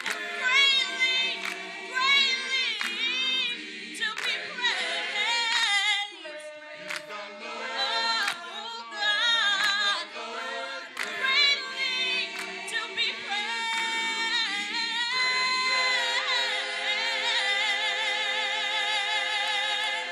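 A cappella gospel choir singing, with a woman soloist's voice sliding and bending above it. Near the end, the voices hold one long chord with vibrato.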